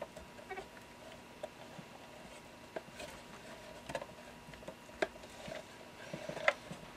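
Small scattered clicks and rubbing from a plastic twist-on wire nut being screwed down by hand over four twisted wires, the strongest click near the end.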